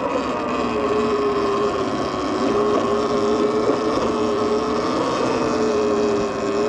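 Electric e-bike motor whining steadily while riding; the pitch drops slightly as the bike eases off, then holds. A rush of wind and tyre noise runs underneath.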